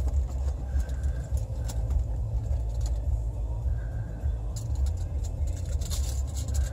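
A car running, a steady low rumble, with a few light clicks and rattles in the second half.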